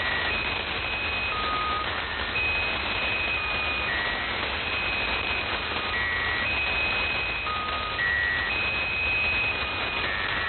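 Squeaky Wheel shortwave marker station heard over a radio receiver. Its electronic tone signal plays as a repeating run of short beeps stepping between a few different pitches, about two seconds per cycle, over steady radio hiss and static. The signal comes through clearly.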